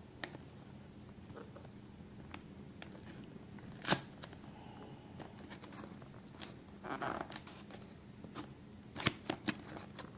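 Cardboard retail box handled and its tuck flap pried open by hand: scattered taps and scrapes of thin card, a sharp click about four seconds in, a short rustle near seven seconds, and a quick run of clicks near the end.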